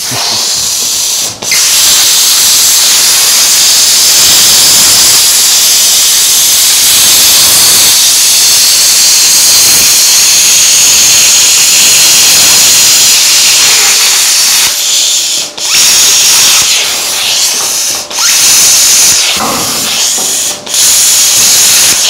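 Plasma cutter cutting through sheet-metal body panel: a loud, steady hiss. It breaks off briefly about a second in, then again three times in the last seven seconds as the cut stops and restarts.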